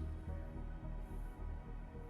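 Soft ambient background music: sustained tones over a low bass.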